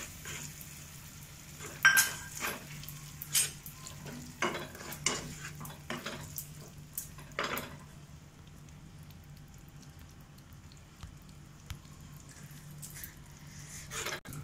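A plastic ladle scraping and knocking against a non-stick kadai as an onion-tomato masala with curd is stirred, over a light sizzle. The strokes come irregularly and are sharpest in the first half, falling quieter after about eight seconds.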